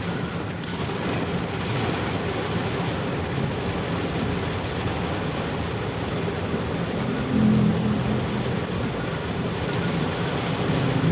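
Steady rushing road and traffic noise from vehicles on the move, with a louder low swell of engine sound about seven seconds in.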